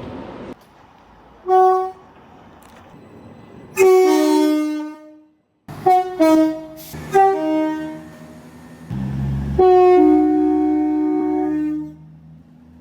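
Train horns blowing a series of blasts, each sounding a chord of notes: a short toot, a long blast, a quick run of short toots, then a long blast about ten seconds in. The blasts stop abruptly between clips, and a low rumble comes just before the last long blast.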